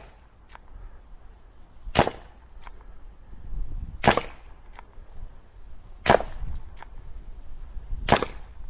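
Air pistol firing homemade .177 (4.5 mm) darts: four sharp shots about two seconds apart. Each shot is followed by a faint click.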